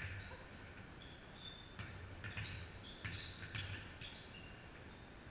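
A basketball bouncing on a gym floor, about five or six dull thuds spread unevenly, mixed with several short, high sneaker squeaks from players moving on the court.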